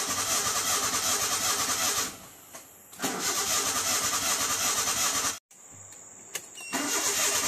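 Proton Wira car engine being cranked by the starter motor in three attempts with short pauses between, a steady pulsing churn that does not settle into an idle: the freshly rebuilt engine is hard to start, which the mechanic later traces to an over-loose intake valve on cylinder no. 2 losing compression.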